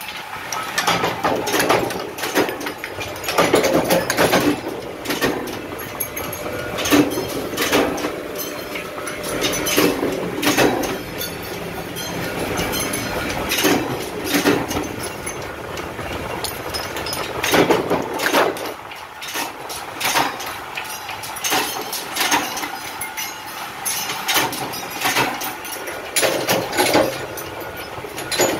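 Metal-stamping press running with a steady machine drone and repeated clanks and knocks every second or so as steel discs are pressed into dome-shaped cups.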